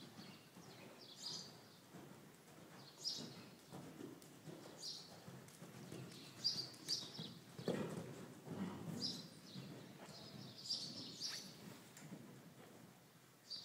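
Faint, muffled hoofbeats of a horse moving over soft indoor-arena footing, with a short high chirp every second or two.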